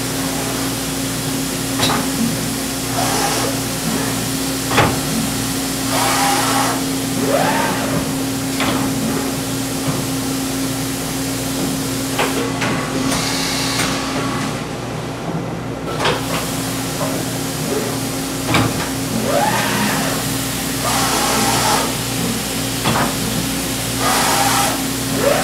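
Makino A92 horizontal machining center's rack tool magazine at work: the tool carrier moves with short rising whines, with sharp clicks and clunks and several bursts of hiss lasting about a second, over a steady hum.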